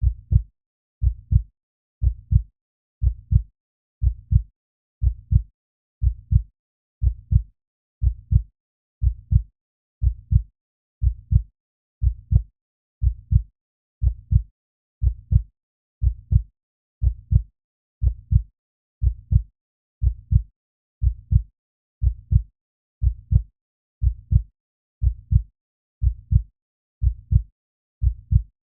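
Slow human heartbeat: a steady lub-dub double thump about once a second, the thumps deep and dull.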